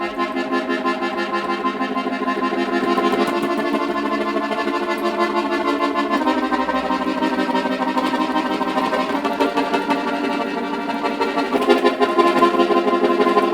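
Accordion music: sustained, reedy chords held for a few seconds each and changing about every three seconds.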